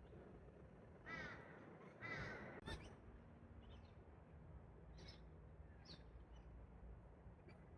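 Two harsh bird calls about a second apart, each with a wavering pitch, followed by a few short, faint chirps against quiet outdoor background.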